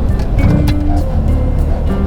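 Jazz-blues music with held notes and crisp percussion, over the steady low rumble of a Classic Mini's engine and drivetrain heard from inside the cabin.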